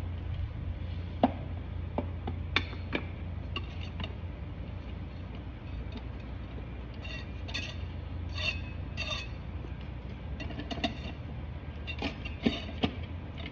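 Scattered light metallic clicks and clinks as a TH350 transmission's forward clutch drum is turned and worked down over its clutch plates until it seats, over a steady low hum.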